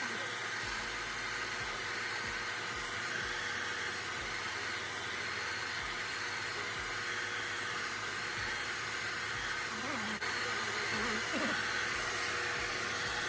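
Handheld hot-air blower running steadily, heating a glossy-backed sticker card to soften and lift a wax stain.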